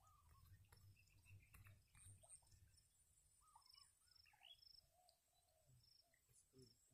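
Near silence: faint open-air ambience with a low rumble in the first half and a scatter of faint, short high chirps.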